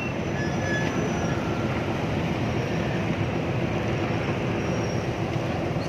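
Steady engine rumble of a vehicle ferry pulling away from the dock.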